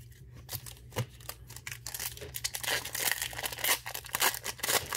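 A trading-card booster pack wrapper being torn open and crinkled. The crackling is sparse at first and grows busier about halfway through.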